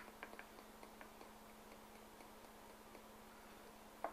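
Near silence over a low electrical hum, broken by a few small, light clicks of a plastic flux bottle and its plastic lid being handled as flux is tipped out: one at the very start, a quick few just after, one about a second in and another near the end.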